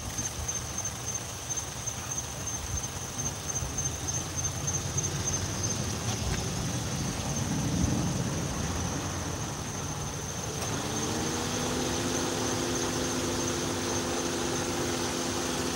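Insects calling with a steady, high-pitched trill at dusk over a low rumble. From about eleven seconds in, a steady whine of several pitches joins and holds for several seconds.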